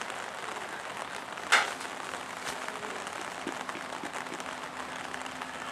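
Steady hiss of rain over an outdoor sports field, with one brief loud sound about a second and a half in.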